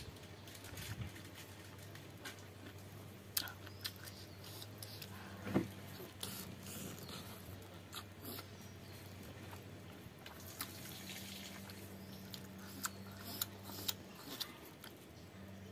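Close-miked eating sounds: chewing of pork intestine and blood stew with rice, eaten by hand, with scattered sharp mouth clicks and smacks, over a low steady hum.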